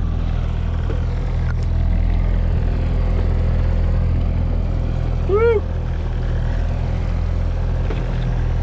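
Boat's engine running steadily at trolling speed, a low even hum, with one short rising-and-falling vocal sound about five seconds in.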